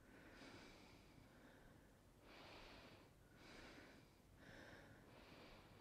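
Near silence apart from faint breaths hissing through a breathing mask, about one a second.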